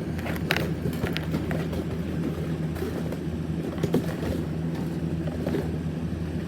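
Steady low droning hum, with a few light clicks from small plastic fidget toys being handled.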